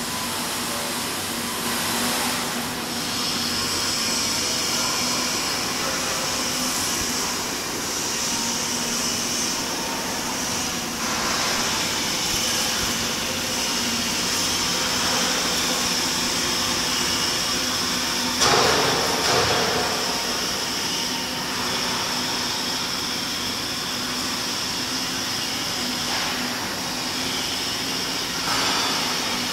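Steady mechanical workshop noise: a constant high whine over a low hum, with a few louder noisy surges and the loudest, a short clatter, about 18 seconds in.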